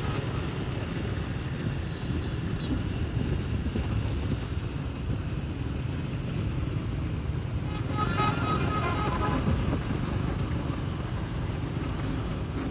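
Steady street traffic of motorbikes and cars running past. A short, louder spell of high pitched tones comes about eight seconds in.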